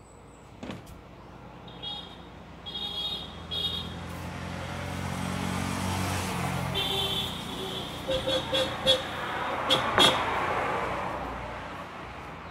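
A motor vehicle passing on a nearby road, its engine noise building over the first few seconds and fading near the end, with several short high-pitched beeps along the way.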